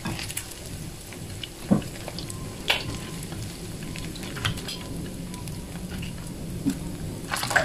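Battered quail eggs (kwek kwek) sizzling and crackling in shallow oil in a frying pan. Metal tongs click sharply a few times as pieces are turned and lifted out.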